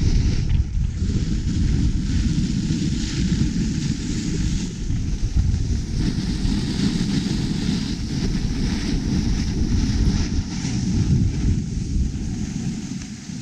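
Wind rumbling on the microphone at speed, with a steady hiss of snow sliding under the filming rider on packed snow. Both ease off near the end as the pace slows.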